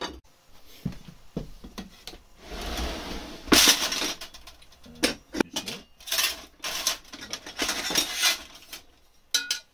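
Scrap sheet-metal offcuts and bars clinking, clattering and scraping against each other as they are rummaged through in a drawer, in a series of irregular clanks.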